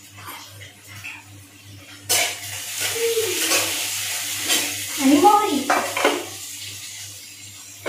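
Chopped onion frying in hot oil in a kadhai, sizzling while a metal spoon stirs and scrapes the pan. The sizzle comes up about two seconds in and dies down near the end.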